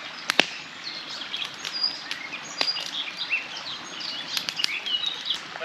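Songbirds chirping and singing, with sharp pops and crackles from split logs burning in an open fire.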